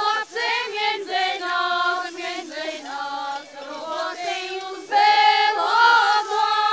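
A group of high voices singing a folk song without instruments, in long held notes. The singing swells louder about five seconds in.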